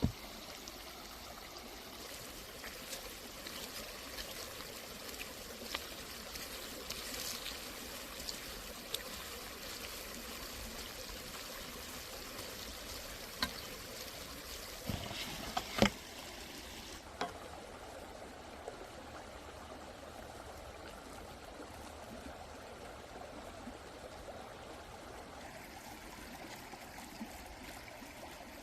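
Steady trickling water, like a small stream, running throughout. A few light clicks and knocks sound over it, with one sharp knock a little past the middle.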